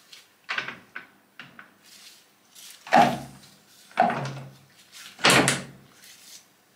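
A series of clunks and knocks from handling the metal lathe and its pressure knurling tool with the chuck stopped: a few small ones, then three louder ones about a second apart.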